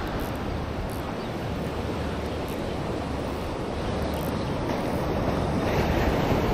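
Ocean surf washing onto a beach: a steady rush, with wind buffeting the microphone.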